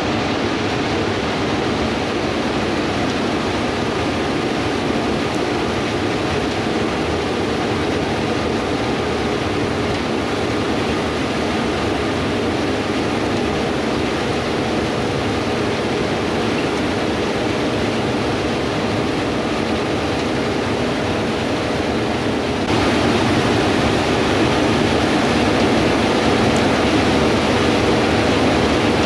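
Harvest machinery running steadily in a wheat field: a constant engine hum under a broad rushing noise, which jumps abruptly louder about 23 seconds in.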